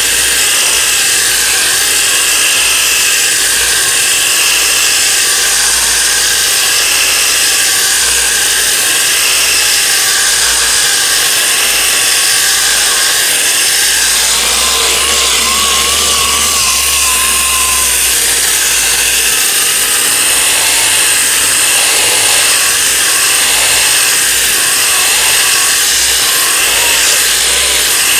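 8-inch orbital sander with 40-grit paper running without a break, sanding down cured short-strand fibreglass body filler; its pitch wavers slightly.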